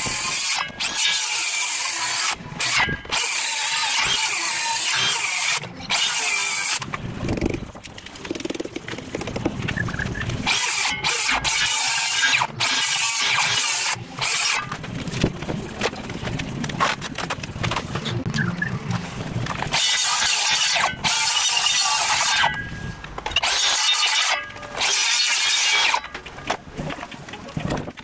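Makita cordless circular saw cutting into a timber beam in a string of short passes. The motor spins up, cuts for a second or a few seconds and stops, again and again, as a checkout (notch) is cut into the beam's end.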